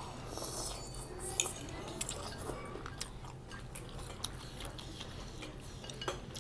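Eating at a table: noodles slurped and chewed, with scattered short clicks of a metal fork against a ceramic plate.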